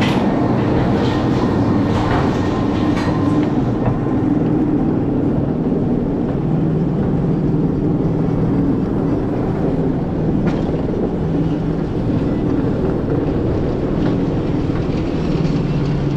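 Bobsled roller-coaster car being hauled up the lift hill: a steady mechanical rumble and clatter from the lift, with a few scattered clicks and a hum that grows stronger near the end.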